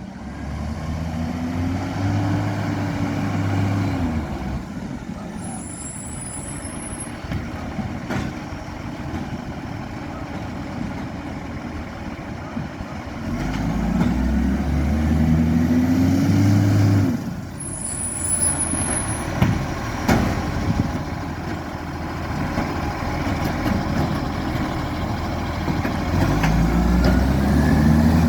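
Garbage truck engine revving up and dropping back three times, with a short air hiss just after the first two revs. The truck has an exhaust leak.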